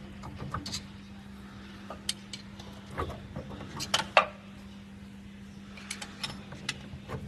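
Scattered metal clicks and clinks as the blade-holder screws of a Baolong PF320 machine are worked loose by hand, the sharpest pair about four seconds in and a quick run of them near the end, over a steady low hum.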